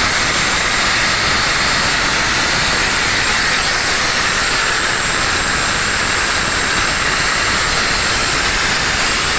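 Airman PDS655 diesel-driven portable screw air compressor running on a test run after its screw airend was serviced. The sound is a loud, steady rushing hiss that does not change.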